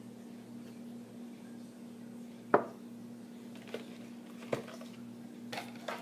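Ceramic teacup set down on a wooden table with one sharp knock about two and a half seconds in, followed by a few lighter clicks and taps as the clear plastic display box is handled.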